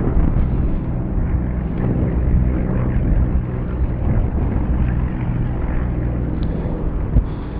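Steady low rumble of wind buffeting the microphone during a parachute descent.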